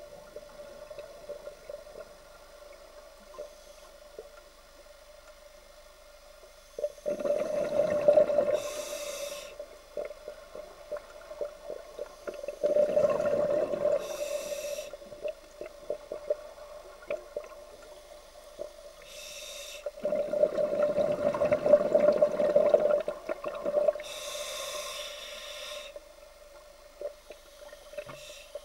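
Scuba diver breathing through a regulator: three loud rushes of exhaled bubbles several seconds apart, each followed by a short hiss of inhalation, over a steady hum.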